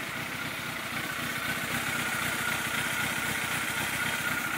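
Yamaha YZF600R's inline-four engine idling steadily.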